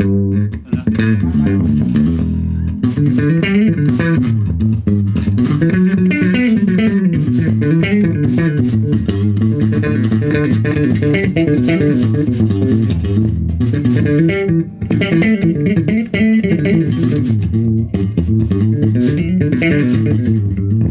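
Elegee Mini Datu five-string electric bass played continuously in a sound check: a quick stream of notes moving up and down the neck, with one low note held briefly about two seconds in.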